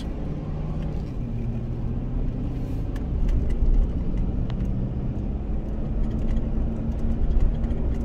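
Truck driving on the road, heard from inside the cab: a steady low rumble with a steady hum from a wheel bearing going bad.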